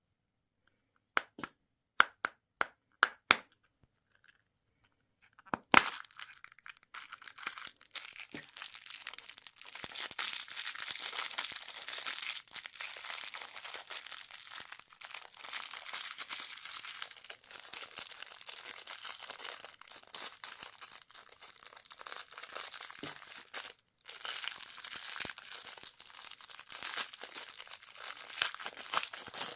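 A quick run of sharp plastic clicks, then continuous crinkling and tearing of plastic candy wrapping as it is unwrapped, with a brief pause near the end.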